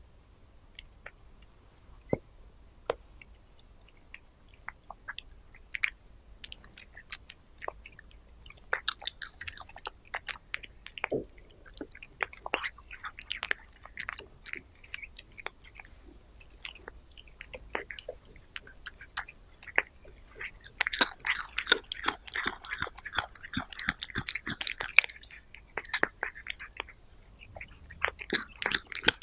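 A cat chewing raw meat close to a small microphone: scattered clicks and bites at first, growing steadily denser and louder, busiest about two-thirds of the way through.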